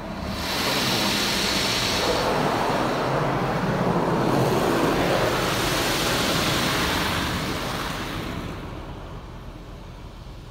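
Water spray from the PDQ LaserWash M5's touchless gantry hitting the car's roof and glass, heard from inside the cabin as a loud, even rush. It swells about half a second in, holds, and fades from about eight seconds as the spray moves away.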